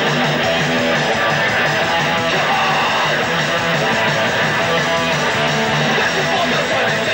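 Live punk rock band playing loud and without a break: strummed electric guitar over bass and drums.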